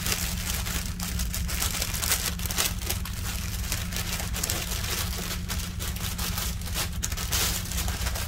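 Plastic packaging of diamond-painting drill bags crinkling and rustling in a dense run of small crackles as it is handled and opened, over a steady low hum.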